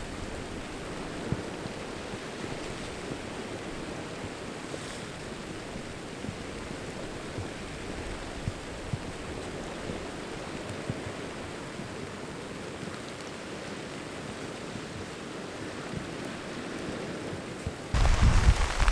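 Steady wash of wind, rain and sea surf on the coast, with a few faint ticks. Near the end a louder rustle starts abruptly.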